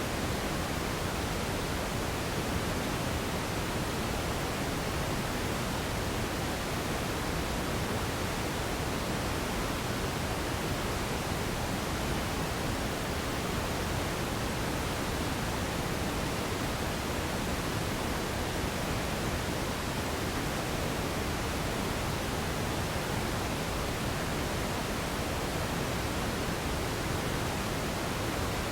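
Steady radio static: an even hiss with a fuller low end, unchanging and without breaks, tones or voices.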